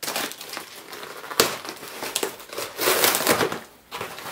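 A cardboard shipping box being opened by hand, its packing crinkling and crackling, with a sharp knock about a second and a half in and a dense burst of crinkling around three seconds in.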